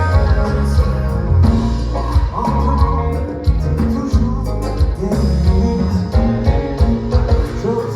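A live band playing kompa during a sound check. Heavy bass and a steady drum beat carry under keyboard and guitar lines, and a voice sings in places.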